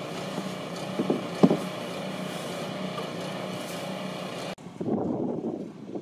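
An engine running steadily with a low, even hum, with two short knocks about a second in. The hum cuts off suddenly near the end and gives way to a softer outdoor rustle.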